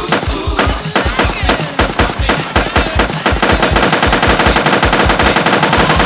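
Gunfire sound effects: single shots about three a second that quicken around halfway into rapid automatic fire.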